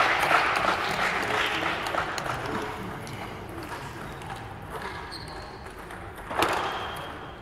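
Badminton racket striking a shuttlecock once, a sharp crack about six seconds in, fitting a serve. Before it there is only the low, echoing hubbub of a large sports hall, fading over the first few seconds.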